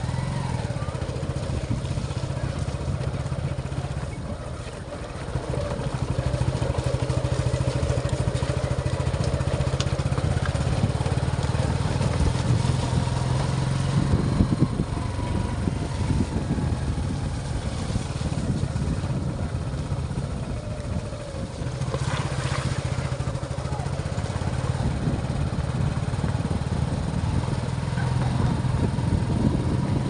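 Motorcycle engine running as the bike is ridden along a rough dirt track. The engine note eases off twice, briefly, before picking up again.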